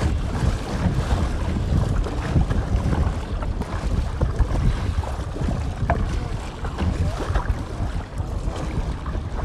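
Wind buffeting the microphone with a steady low rumble, over water splashing and lapping against a kayak's hull on choppy water.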